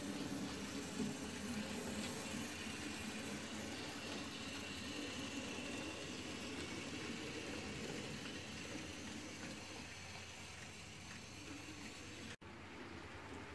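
H0-scale model train running along the track, its small electric motor and wheels whirring and rattling on the rails, slowly fading. The sound breaks off abruptly near the end and resumes quieter.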